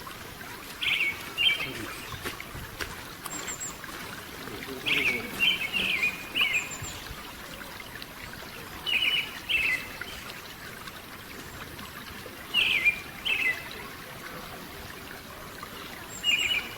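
A wild songbird giving short phrases of two or three quick, falling chirps, repeated every few seconds over a steady background hiss.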